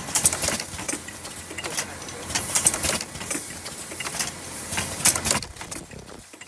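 Face-mask ear-loop welding machine running, with a quick, uneven train of mechanical clicks and clacks over a steady hiss.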